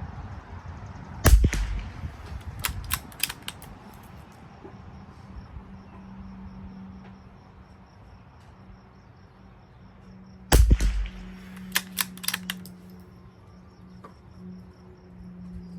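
Two shots from a .22 rimfire rifle about nine seconds apart, each a sharp crack followed by a few fainter sharp clicks.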